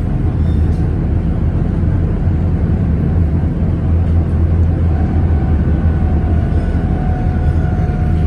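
Steady low rumble of a ČKD KT8D5R.N2P articulated tram running along the track, heard from inside the passenger cabin. A faint whine joins about five seconds in, its pitch sinking slightly.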